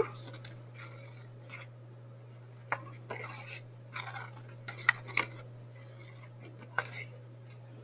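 Scissors cutting along a zigzag line in construction paper: a run of short, irregular snips and paper crinkles, over a steady low hum.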